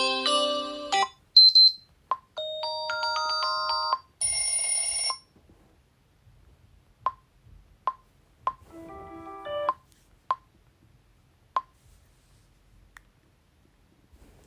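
Built-in tones of a Xiaomi Redmi 9A phone previewed one after another: short electronic chime melodies, a held chord, and a brief noisy whoosh about four seconds in. A short melody follows near the middle, among single sharp clicks, before it falls quiet.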